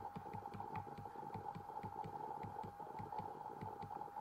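A faint steady hum with a fast, even throbbing under it, about six pulses a second, and light ticks scattered over it.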